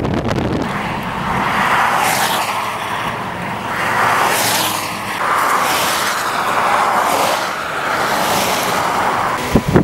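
Traffic passing on a highway: tyre and road hiss swelling and fading several times, about two seconds apart. A couple of sharp knocks come right at the end.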